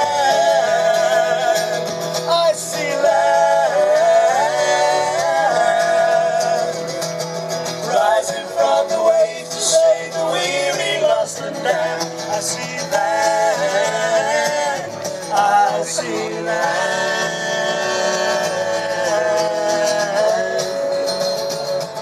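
Folk music with a sea-song melody, playing on after a sung chorus. A held, wavering melody line with accompaniment, and no sung words that can be made out.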